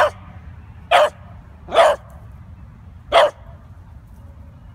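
Beagle puppy barking at a Slinky toy: four short single barks, about a second apart at first, then a longer gap before the last.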